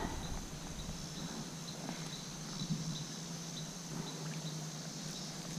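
Outdoor ambience of insects: a steady high drone with a short, regular chirp about two to three times a second, and a few faint knocks.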